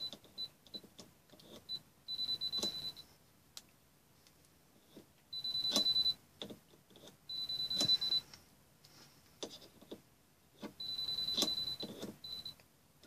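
GVDA GD118B digital multimeter beeping a single high-pitched tone in irregular bursts, some short pips and some held for nearly a second, as its voltage detection responds to the test lead; light clicks from handling the lead come in between.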